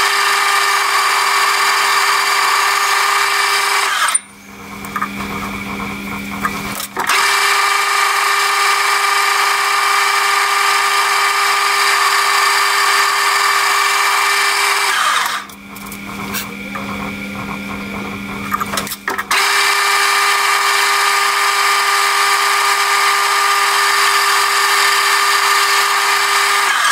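Metal lathe turning down a screw blank to thread diameter: three long cutting passes of the tool bit on the spinning work, each a loud, steady cutting sound. The lathe runs more quietly in the two breaks between passes, about four and fifteen seconds in.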